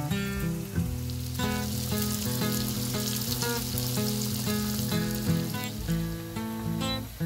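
Chickpea falafel frying in a pan, sizzling steadily, under background music.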